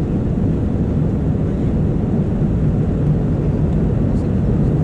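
Airliner cabin noise: the steady, low rumble of the engines and airflow heard from a passenger seat in flight.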